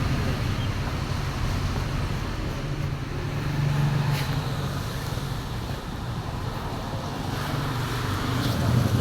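Isuzu D-Max diesel engine running steadily at idle after its fuel tank was cleaned and both fuel filters were replaced, with a slight swell in the low hum around four seconds in.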